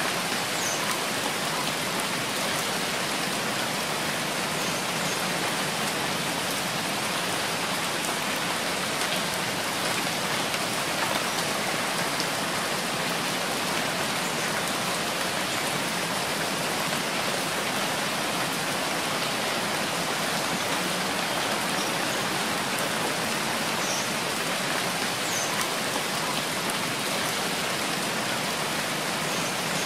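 Steady rain falling, an even, unbroken patter of many drops at a constant level.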